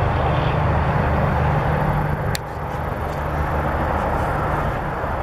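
Steady noise of distant interstate highway traffic, a constant wash of engine and tyre sound, with a brief click about two and a half seconds in.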